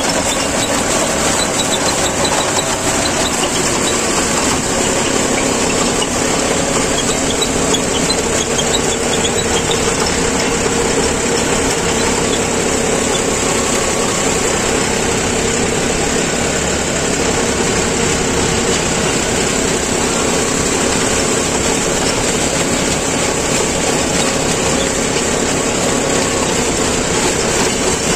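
John Deere tractor's diesel engine running steadily at working speed, heard from the driver's seat, with the rotary tiller behind it.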